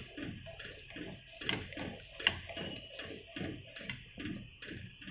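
A plastic spatula stirring milk in a nonstick pan, scraping and swishing in quick strokes, about three a second, with a few sharper clicks against the pan.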